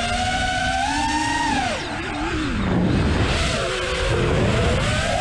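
The motors and propellers of an iFlight Nazgul5 V2 five-inch FPV quadcopter whining in flight. The pitch holds, drops sharply about two seconds in as the throttle comes off, then climbs back as power is added again.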